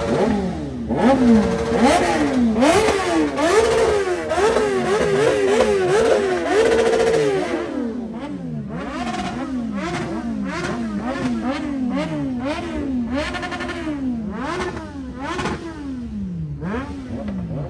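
Motorcycle engine revved over and over, its pitch climbing and dropping about once a second. The revs are loudest and highest in the first half and lower and more even in the second.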